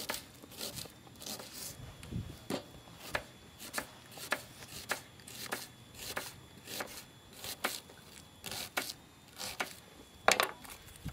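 Kitchen knife slicing food on a chopping board: a steady series of sharp taps about two a second, with one louder knock near the end.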